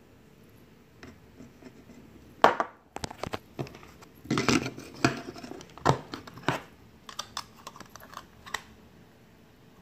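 Hard plastic clicks, knocks and scraping from an OtterBox phone case and belt-clip holster being handled. One sharp click about two and a half seconds in, then a longer scrape and a string of smaller clicks.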